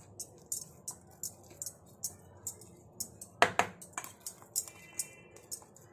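Silicone spatula scraping and tapping inside a stainless-steel grinder jar, emptying out coarsely ground ginger, green chilli and garlic paste: a run of short scrapes and clicks, a few a second, with one louder knock about three and a half seconds in.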